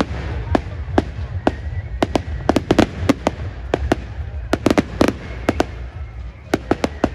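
Fireworks display: aerial shells bursting in a quick run of sharp bangs, with tight clusters of rapid cracks about three and five seconds in, over a steady low rumble.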